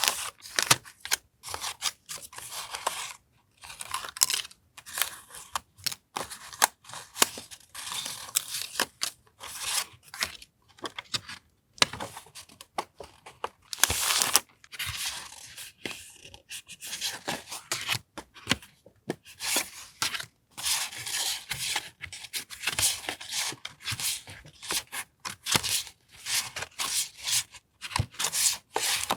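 Paper stationery and its packaging being handled close up: irregular rustling, crinkling and tearing with small sharp clicks and brief pauses between handlings.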